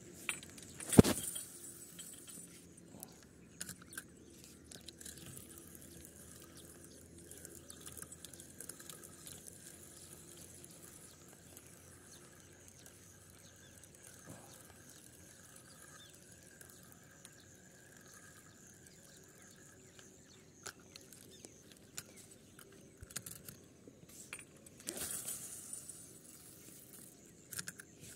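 Spinning rod and reel being fished: one sudden loud sound about a second in as the rod is swung in a cast. After that come long faint stretches with scattered small clicks. Near the end there is a run of metallic clicking and whirring as the spinning reel's handle is cranked.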